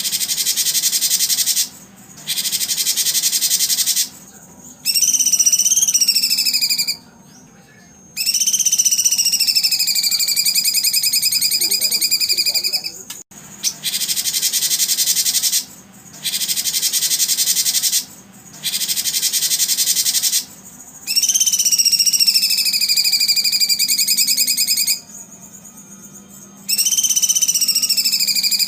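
A bird-training therapy recording: loud buzzing trills, each one to four seconds long and cut off sharply, alternate with whistled bird calls that rise and then slowly fall in pitch, with short gaps between.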